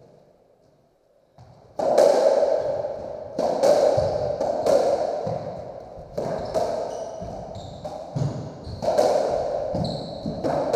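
A racketball rally on a squash court: the ball cracking off rackets, walls and the wooden floor, each hit ringing in the court's echo, about a dozen hits starting about two seconds in. Short high squeaks from shoes on the wooden floor come between the later hits.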